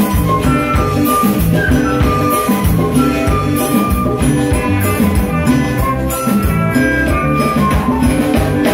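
Live band playing an upbeat number: a saxophone melody in held notes over congas, a drum kit and electric guitar with a steady beat.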